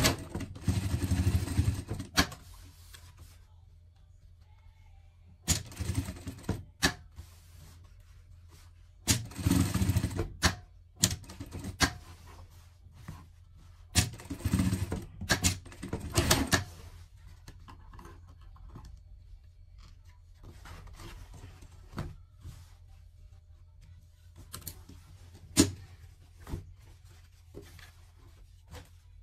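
Industrial sewing machine stitching in short runs: four bursts of a second or two each in the first half, with a steady low hum between them. In the second half there are only a few scattered clicks and knocks while the fabric is handled.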